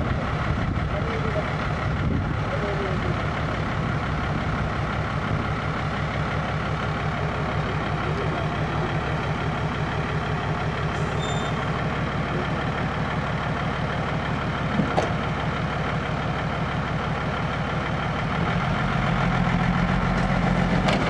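Isuzu six-wheel dump truck's diesel engine running at a steady idle with the tipper bed raised. Near the end the engine speeds up and gets louder.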